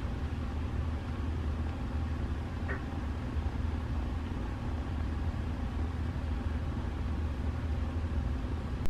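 A kitten purring close to the microphone: a steady low rumble.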